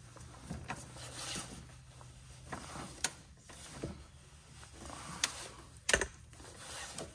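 Ratcheting click-type torque wrench being worked on a suspension bolt: scattered, irregular ratchet clicks and metal knocks as it is pulled and reset, with the loudest knock about six seconds in. The wrench has not yet reached its 97 ft-lb setting, so its release click is not yet heard.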